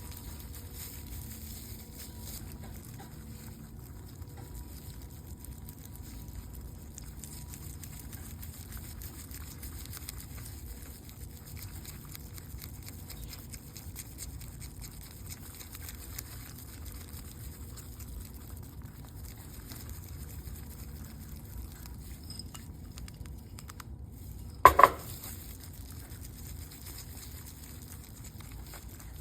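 Spoon stirring melted chocolate in a bowl: a faint, continuous light patter and scraping. A sharp double click sounds near the end.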